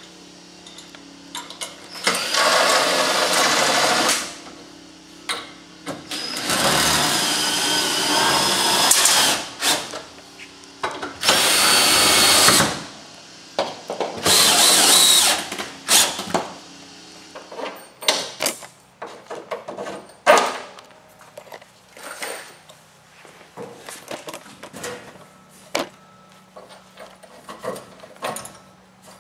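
Cordless drill/driver run in four bursts of about two seconds each, its motor whining steadily as it drives fasteners into the wooden crate. After the bursts come scattered light knocks and clicks of wood and hardware being handled.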